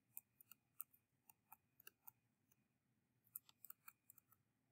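Near silence broken by faint, light clicks of a stylus tip tapping on a touchscreen during handwriting. There is a scattered run of them over the first two seconds, and a second short run a little past the middle.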